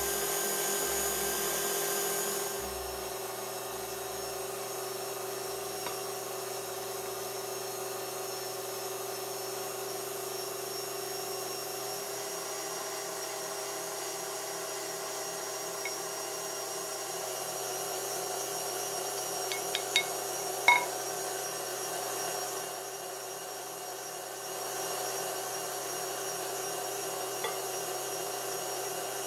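KitchenAid stand mixer's motor running steadily with its wire whisk beating egg whites in a glass bowl, an even mechanical whine. A few sharp clicks come about two-thirds of the way through.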